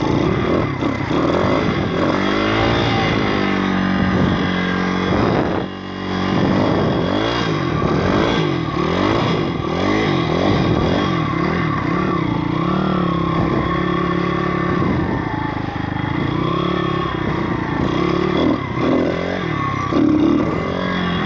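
Single-cylinder four-stroke YX 160cc pit bike engine running under way, its revs rising and falling over and over, then held steadier. The bike doesn't go anywhere, a running fault that the rider thinks might be the valves.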